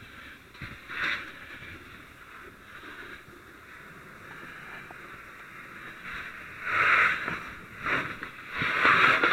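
Fire hose nozzle spraying water on a fire: a steady hiss, with short, louder bursts of spray about a second in and three times near the end, as the flames are knocked down.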